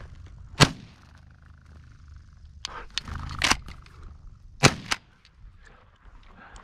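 Two shotgun shots from a Benelli 20-gauge semi-automatic about four seconds apart, with a few smaller sharp clacks between them as the bolt, stuck open after the first shot, is slammed forward by hand.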